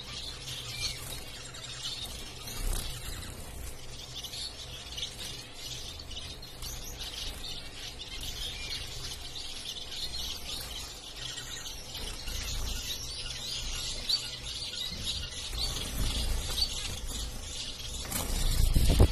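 A flock of caged zebra finches calling, with many short chirps overlapping without a break. A low rumble runs underneath, and a louder rustling noise swells near the end.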